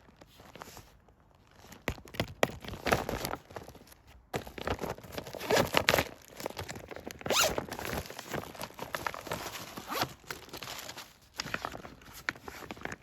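Packaging being handled and opened: irregular rustling, crinkling and tearing noises with sharp clicks, loudest in bursts about three, six and seven and a half seconds in.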